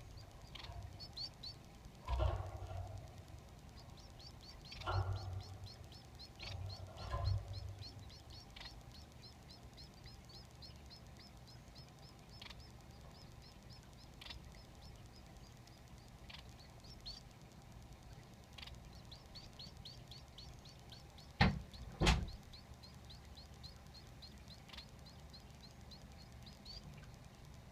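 Society finch chicks begging: a rapid run of short, high chirps, several a second, going on through most of the stretch. Several dull knocks break in, the loudest two in quick succession near the end.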